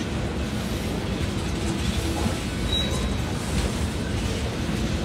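Freight train of tank cars rolling slowly past: a steady rumble of wheels on rail, with one brief high squeak a little before three seconds in.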